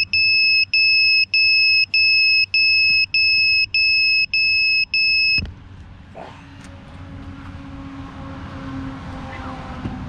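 FPV quadcopter's buzzer beeping steadily on the ground, a high beep about every 0.6 s, then cutting off with a click about five seconds in. After that only a faint low hum remains.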